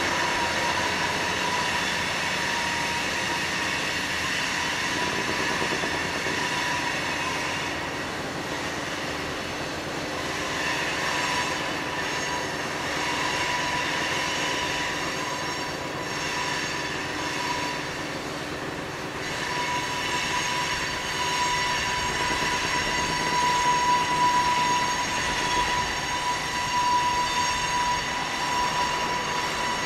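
Coal train's steel wheel flanges squealing against the rails: a loud, steady high-pitched squeal over the rumble of the rolling train, growing stronger in the second half.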